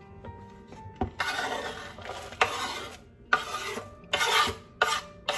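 Knife blade scraping chopped dark chocolate off a wooden cutting board into a bowl: a knock about a second in, then five or six short rasping strokes.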